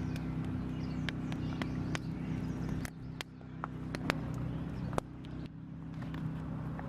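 A steady low hum from a running motor, with scattered sharp clicks and knocks over it; the sharpest knock comes about five seconds in.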